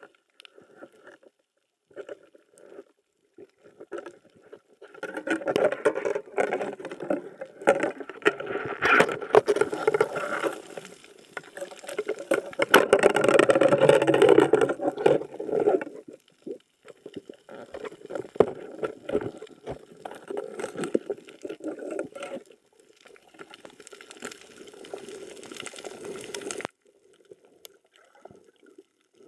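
Muffled water movement and gurgling heard underwater, coming in irregular surges that are loudest for several seconds in the first half and drop off abruptly near the end.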